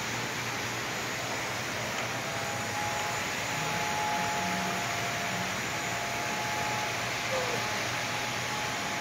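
O scale model freight cars rolling steadily past on two-rail track, a smooth even running noise mixed with the steady hum of the room. A faint high steady tone joins about two seconds in.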